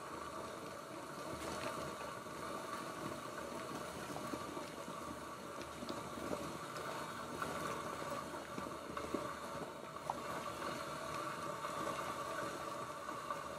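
Cappellini boiling in a small enamel saucepan: a steady bubbling and hiss of water at the boil, with a few light taps as a silicone spatula stirs the noodles.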